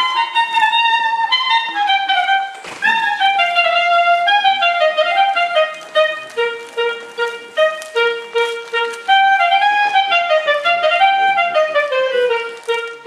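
Solo clarinet playing a lively folk melody: quick stepwise runs of short notes, with stretches of repeated short notes on one low pitch. A brief thump sounds a little under three seconds in.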